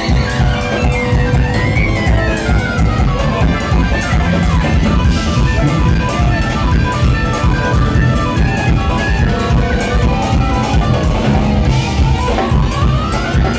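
Jazz-fusion band playing live, heard from right beside the stage so the sound is loud and rough: drum kit and electric bass drive a dense groove under pitched lead lines. About two seconds in, a high line glides down in pitch, and near the end one glides back up.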